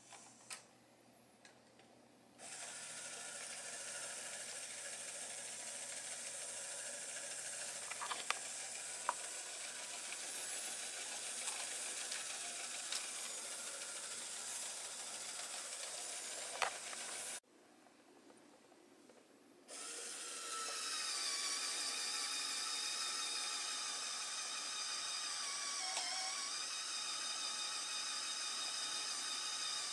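Small LEGO Power Functions electric motor driving the truck's geared winch, running with a steady whine and gear noise and a few sharp clicks. It stops about halfway through for two seconds, then runs again louder as the winch pulls the model car up the ramp on its chain.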